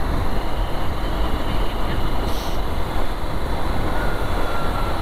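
Steady wind rush and low rumble of a motorcycle riding at road speed, heard from the rider's camera.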